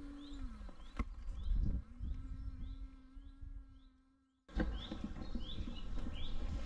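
Outdoor summer ambience: a bird repeats a short, high, falling chirp, and a fly buzzes with a wavering hum. A sharp click and a louder rustling knock come about a second in, as the hard-shell roof top tent's lid is pulled down. The sound fades out briefly and cuts back in abruptly about four and a half seconds in.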